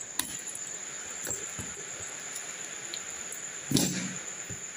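Fingers picking and scratching at the packing tape of a cardboard parcel box over a steady hiss, with faint clicks and a louder rustle and knock of the box being handled about four seconds in.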